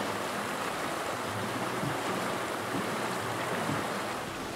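Steady rushing of a shallow, fast-flowing river current over rocks.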